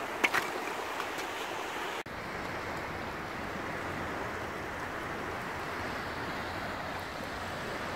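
Steady rushing of wind and small waves washing over shallow sand flats on a sea beach, with a brief dropout about two seconds in.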